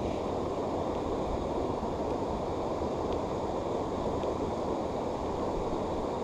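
Steady rushing noise of water pouring over a river weir.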